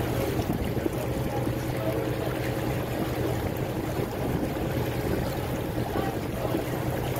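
Tour boat under way: its engine running with a steady low hum, over a constant rush of water along the hull.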